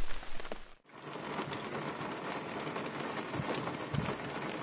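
Steady rain. After a sudden cut just under a second in, it is heard from inside a vehicle as an even hiss on the windshield and roof, with a few soft knocks and ticks.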